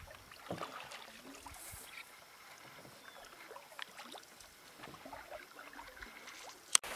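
Canoe paddled across calm water: faint, scattered paddle splashes and drips. A single sharp click near the end.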